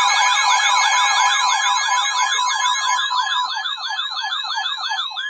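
Electronic siren rapidly sweeping up and down in pitch, the sweeps slowing toward the end, over a steady high alert tone: the weather radio's warning alarm ahead of a severe thunderstorm warning.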